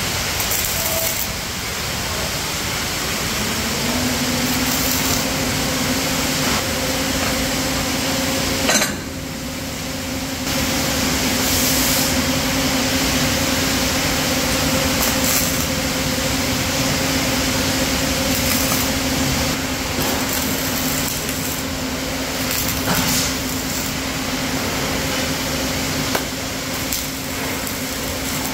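Steady hiss of flux-cored arc welding equipment on steel plate, with a low hum that starts a few seconds in and short louder crackling stretches where the arc burns.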